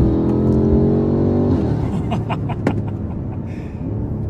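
BMW M5 F90's twin-turbo V8, breathing through catless downpipes and an FI exhaust, pulling hard under load with its note rising, with a short break at the very start as it shifts gear. About a second and a half in, the throttle lifts and the note drops away, and a few sharp cracks from the exhaust follow on the overrun.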